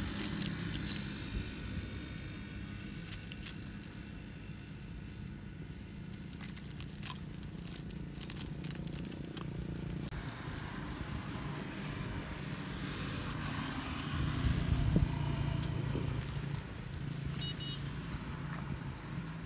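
Small freshwater shellfish clicking and rattling against each other as they are shaken and picked out of a cast net onto the ground, with irregular clicks throughout. A low steady drone like distant engine noise runs underneath.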